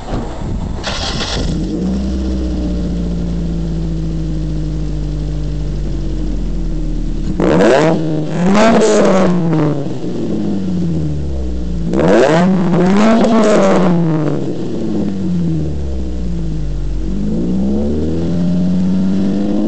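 Ford Focus ZX3 four-cylinder engine, modified with a long-tube 4-2-1 header, 2.5-inch exhaust and stage 2 camshafts, idling steadily through the exhaust, then revved in two sets of quick blips that rise and fall back to idle, with the revs climbing again near the end.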